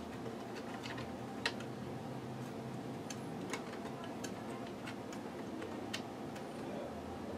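Irregular small plastic clicks and taps as loose white plastic drive gears are handled and pressed back onto their posts in an HP Photosmart C5180 printer's chassis. The sharpest click comes about one and a half seconds in, over a steady low hum.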